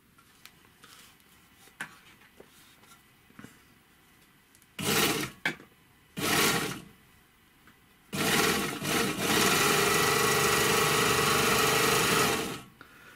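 Gemsy 1D three-thread overlocker sewing a test seam after a thread-tension adjustment. It runs in two short bursts, then stitches steadily for about four seconds before stopping, with a few faint handling clicks before it starts.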